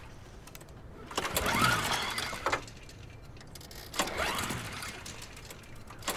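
Gas walk-behind lawn mower being pull-started: two yanks on the recoil starter cord, about a second in and about four seconds in, each whirring the engine over briefly without it catching.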